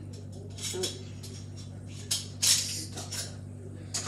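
Kitchen handling noises: scattered clicks and clatter of utensils and dishes over a steady low hum, with a louder rattling scrape about two seconds in.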